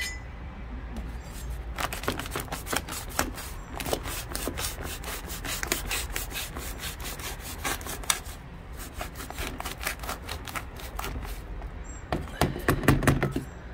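Small hand trowel sawing and scraping at a plastic soil bag to cut it open, a quick run of short scratchy, crinkling strokes. A louder scrape comes near the end.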